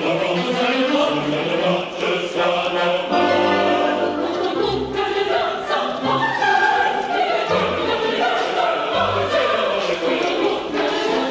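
Opera chorus singing together with an orchestra, many voices in full ensemble over sustained low orchestral notes.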